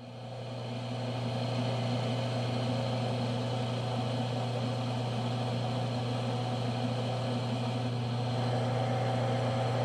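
Smithy combination lathe/mill's electric motor starting up and coming to speed over about a second and a half, then running steadily at high speed with a strong hum as the lathe turns the workpiece under power feed.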